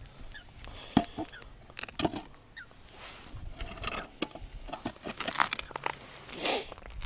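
Irregular light clicks, knocks and rustles of fishing tackle being handled, with a short rustle about six and a half seconds in.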